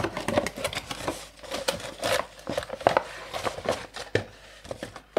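A cardboard box being opened and unpacked by hand: irregular rustling, scraping and light knocks of the cardboard flaps and the packed parts being lifted out.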